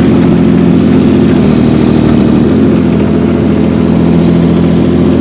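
Mini excavator's diesel engine running steadily close by as the machine is backed into position.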